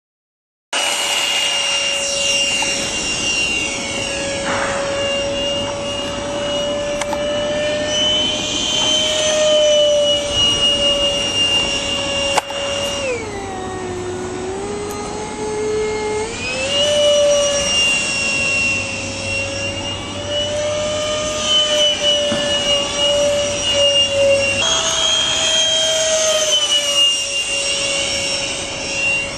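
Electric ducted fan of a Rafale RC jet running with a steady whine; about halfway through the pitch drops for a few seconds as the throttle is eased back, then climbs again.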